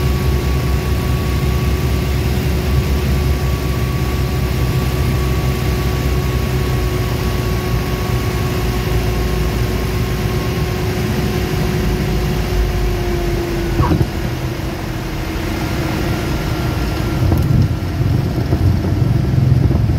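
Single-engine propeller plane's engine and propeller heard from inside the cockpit, a steady drone at low power during the landing. Its pitch sinks slightly about thirteen seconds in, with a brief sharp click just after, under a constant rumble of air and wheel noise.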